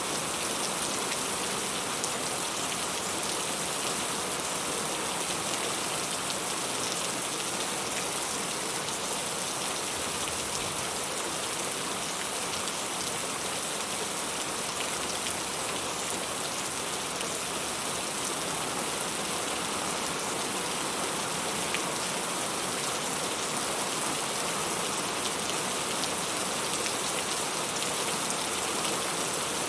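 Heavy rain falling steadily: a loud, even hiss with scattered drop ticks.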